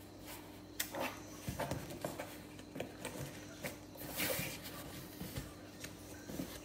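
A cardboard shipping box being handled on a tabletop: light knocks, taps and scrapes as it is turned and picked at, with a short scratchy rasp about four seconds in.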